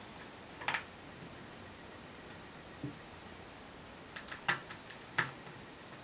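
Scattered light clicks and taps of a small screwdriver on the screws and metal retaining plate inside an open MacBook: one click under a second in, a soft knock near three seconds, then a quick run of clicks toward the end.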